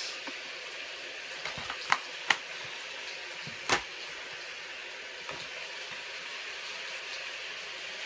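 Steady hiss of rain falling in the background, with a few sharp clicks about two seconds in and again near four seconds as a plastic DVD case is handled.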